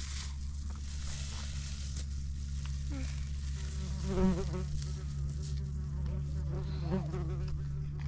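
Steady buzzing of insects, a continuous low drone.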